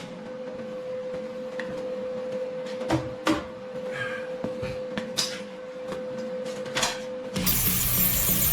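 Several sharp clinks and knocks, like metal pieces being handled, over a steady hum; background music comes back in near the end.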